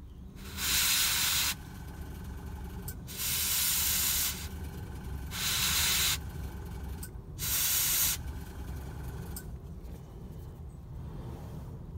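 Airbrush spraying in four short hissing bursts of about a second each, with a steady low hum underneath.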